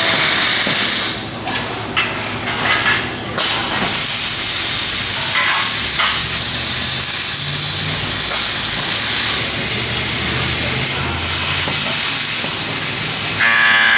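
Robotic MIG welding arc running, a steady sizzling hiss in two long stretches over a low machine hum, after a few sharp clicks and knocks in the first seconds.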